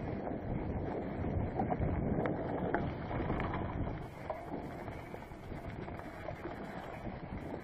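Mountain bike tyres rolling over a carpet of dry fallen leaves, a continuous rustling rumble with small rattles and clicks from the bike, mixed with wind buffeting the microphone. A little quieter from about halfway through.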